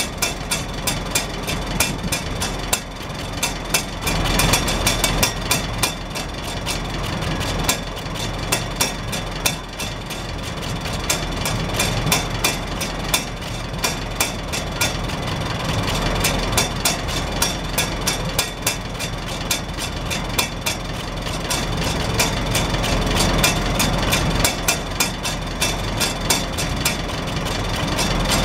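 Farmall Super H four-cylinder engine idling steadily. Exhaust puffs out of the upright chrome stack, and the hinged rain-cap flapper on top lifts with the pulses and taps back onto the pipe in a rapid, even clatter.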